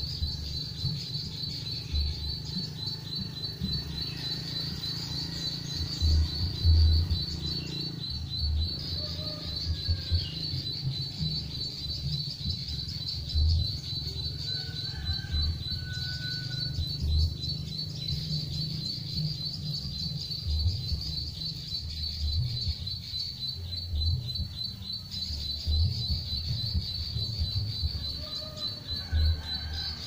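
A high, rapidly pulsing insect trill runs steadily, with a few faint bird chirps over it and irregular low rumbles of wind buffeting the microphone, loudest about six to seven seconds in.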